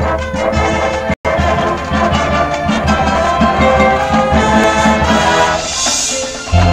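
High school marching band playing a brass passage with percussion. A high, hissing cymbal swell builds near the end, and a loud, low sustained chord comes in just before the close. The recording cuts out for a split second about a second in.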